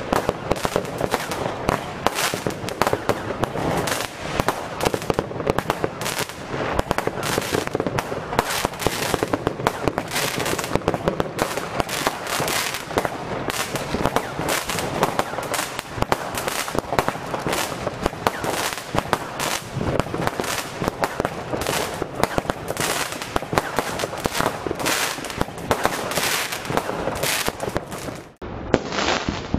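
Weco Impact firework cake (battery) firing a dense, continuous run of shots and bangs, one after another. There is a brief break near the end.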